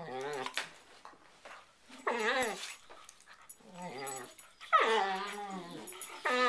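Two dogs playfighting, trading drawn-out whines and growls in separate bouts with short quiet gaps. The loudest whine, about three-quarters of the way through, starts high and slides down in pitch.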